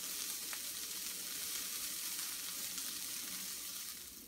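Halved Brussels sprouts sizzling in butter and olive oil in a cast-iron skillet: a steady hiss of the hot fat as the moisture in the leaves turns to steam. It eases slightly near the end.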